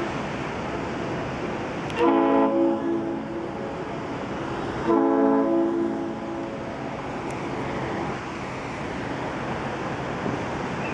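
A yacht's ship's horn sounds two blasts, each a little over a second long, about three seconds apart. Each blast is a steady multi-tone note over a steady rushing background noise.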